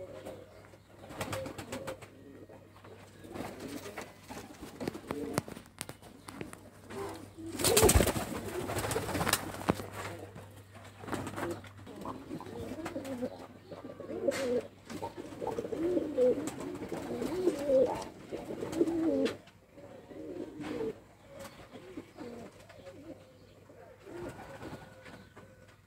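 White Turkish dolapçı pigeons cooing over and over in a small loft. About eight seconds in there is a loud rustling clatter lasting a second or two.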